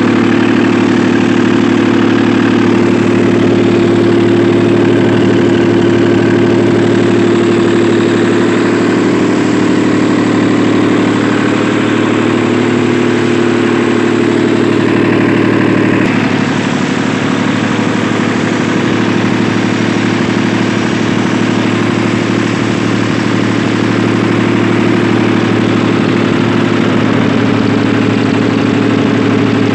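Small diesel generator set's engine running steadily with an even hum, its note shifting slightly about halfway through.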